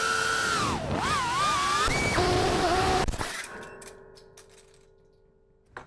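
FPV quadcopter's electric motors whining as recorded by the onboard action camera, the pitch swooping down and up with the throttle, then settling to a lower steady tone. The whine cuts off sharply about three seconds in as the drone crashes, leaving a faint hum that fades away.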